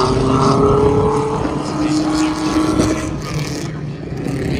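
Stock car engines at racing speed on an oval track, with two cars going by one after the other, each engine note sliding lower as it passes, and the sound easing off near the end.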